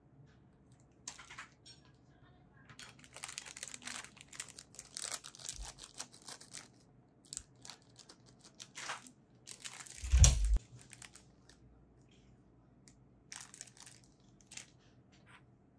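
Plastic packaging being handled: irregular crinkling and tearing sounds, with a thump about ten seconds in.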